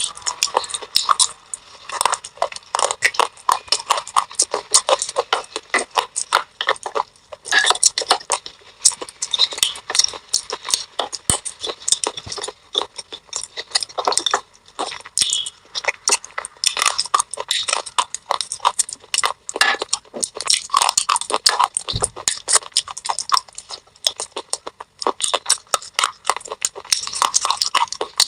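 Close-up chewing of thin, brittle baked-clay pot pieces: a continuous run of crisp, irregular crunches and crackles with brief pauses between bites.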